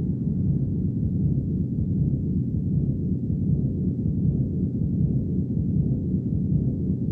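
Steady, deep rumbling drone with no separate events: the low ambient hum of a spaceship interior in a film's sound design.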